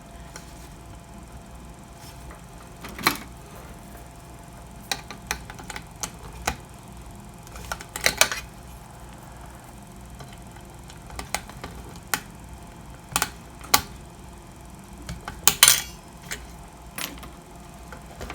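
Irregular clicks and light clinks of small hard parts being handled, about a dozen at uneven intervals, the loudest a few seconds in, around the middle and near the end, as a wall clock's battery motor is being taken out for replacement.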